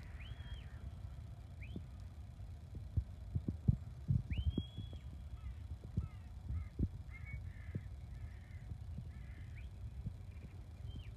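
Shepherd's whistle commands to a working sheepdog: several thin whistles that rise, hold and drop away, about a second apart early on and again near the end, with a run of short chirping whistles in between. Under them sits a low rumble with scattered soft knocks.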